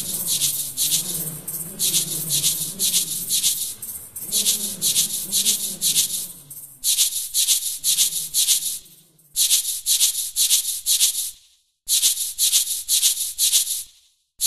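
Music: a shaker keeps a steady rhythm of about four strokes a second over a low, wavering melody that fades out about halfway through. The shaker drops out briefly twice near the end.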